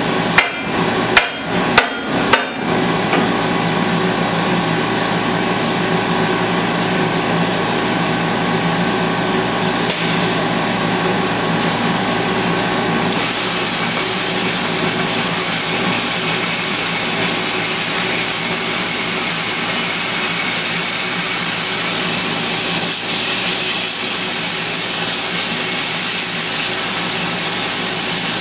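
A few sharp metallic knocks, then a metal-cutting torch hissing steadily as it cuts through metal.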